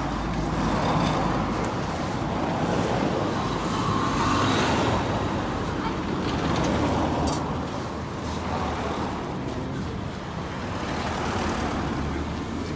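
Road traffic noise: a steady wash of vehicles on a street, swelling and fading as several pass, with faint voices in the background.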